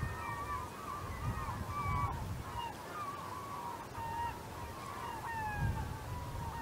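A large flock of gulls calls constantly over the water, with many overlapping short, wavering calls. Low wind rumble on the microphone comes and goes in gusts.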